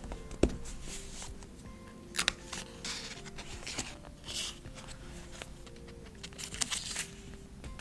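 Soft background music with a simple melody, over light handling sounds of stickers: tweezers clicking, sticker backing and paper rustling as stickers are peeled off a sheet and pressed onto a notebook page. A sharp click comes about half a second in, and a few quicker clusters of clicks and rustles follow.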